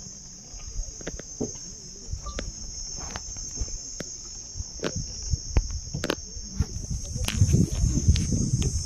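Steady high-pitched insect chorus, with low rumbling and scattered short clicks that get louder near the end.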